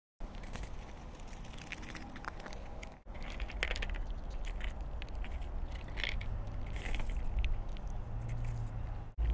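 Chipmunk chewing and crunching food: irregular small crunches over a steady hiss, with a brief break about three seconds in.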